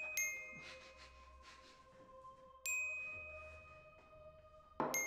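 Bell-like chime notes, in the manner of a glockenspiel, are struck near the start, again about two and a half seconds in, and once more near the end. Each note rings on with several high tones and slowly fades.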